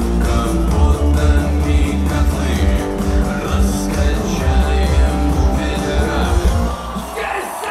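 Rock music with electric guitar over a heavy pulsing bass, with a singing voice. The bass drops out near the end.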